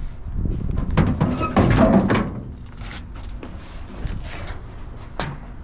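Scrap and cardboard being shifted about in a truck bed: a busy stretch of handling noise about a second in, then a single sharp knock about five seconds in.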